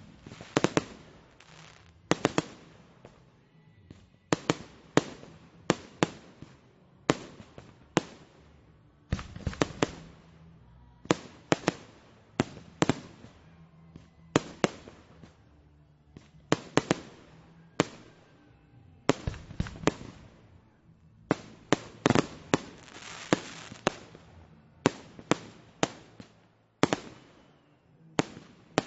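Fireworks going off in a long, constant barrage: sharp bangs, about one to two a second, each trailing off briefly.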